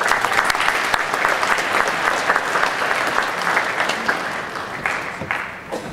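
Audience applauding: a dense run of many hands clapping that thins out near the end, leaving a few separate claps.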